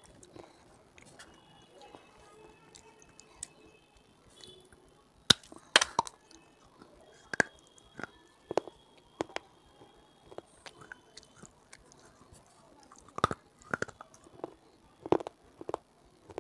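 Dry baked clay crunched between the teeth close to the microphone. After a quieter first few seconds, sharp cracking crunches come about one every half second to a second, in two runs.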